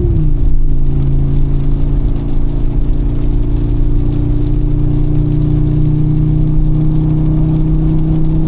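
Mercedes-AMG G63's 4.0-litre twin-turbo V8 running under way: its note drops sharply right at the start, then holds at an almost steady low pitch, sagging only slightly, as the SUV cruises.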